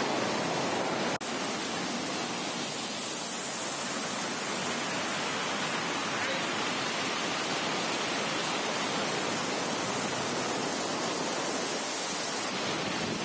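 Steady, even rush of ocean surf breaking on the shore, with a brief dropout and click about a second in.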